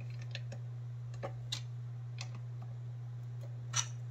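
Plastic Lego bricks clicking and tapping as they are handled and pressed together, about half a dozen scattered clicks with the loudest near the end, over a steady low hum.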